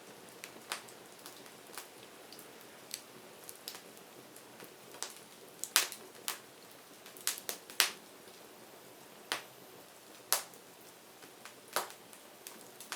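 Wood fire crackling: irregular sharp pops and snaps over a low steady hiss, with the loudest pops about six, eight, ten and twelve seconds in.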